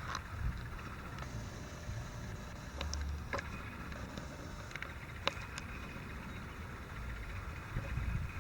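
Wind buffeting the microphone as a low, uneven rumble, with a few short sharp clicks.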